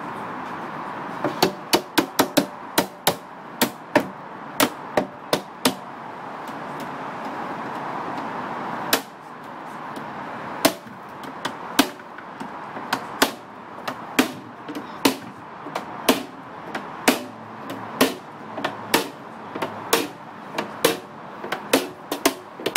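Cooper's hammer striking a steel hoop driver set on a whisky barrel's metal hoop, driving the hoop down to tighten the staves: quick runs of sharp metal strikes, with a pause of about three seconds in the middle.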